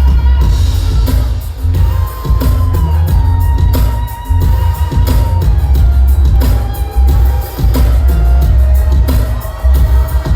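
Live R&B band music with a heavy bass line, steady drum hits and held keyboard or voice tones.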